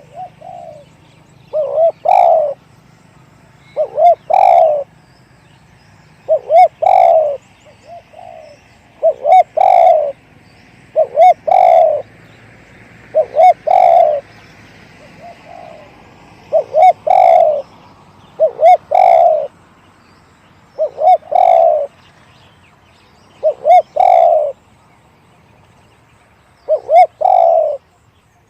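Spotted dove cooing: a loud repeated phrase of two short notes and a longer note, about every two to three seconds, with fainter single coos between. Faint chirping of small birds runs underneath.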